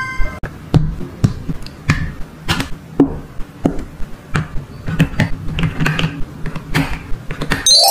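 Light clicks and taps of small plastic toy pieces being handled and set down, including a miniature plastic clothes peg clipped onto a toy hanger rail. Near the end a rising chime sound effect starts.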